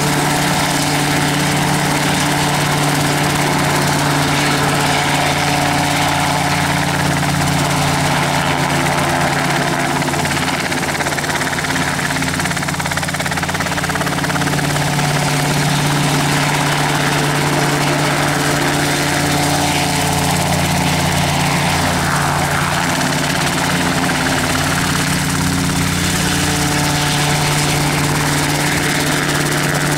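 RotorWay kit helicopter hovering low, its piston engine and main rotor running steadily.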